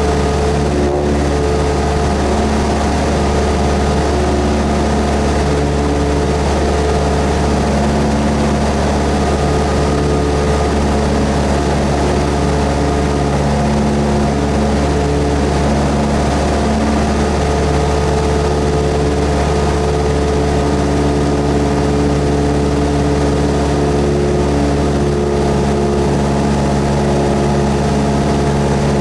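Cessna 172S's four-cylinder Lycoming piston engine and propeller running at a steady drone, with no change in power.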